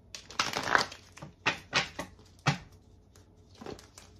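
A tarot deck being shuffled by hand: a run of papery rustling in the first second, then a few single short card slaps.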